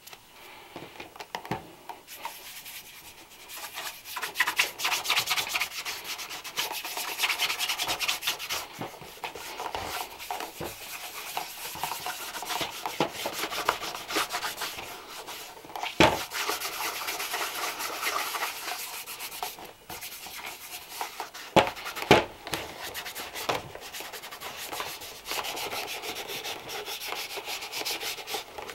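A shoe brush scrubbing rapidly back and forth over a leather shoe. The scratchy strokes start a few seconds in, with a few sharp knocks, two of them close together about two-thirds of the way through.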